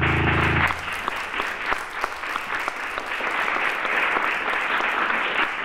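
A final guitar chord rings and stops under a second in. The audience then applauds steadily.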